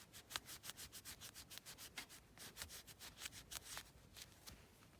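Cloth rubbing quickly back and forth over a small die-cast part, hand-polishing it with Autosol metal polish. Faint, at about four or five strokes a second.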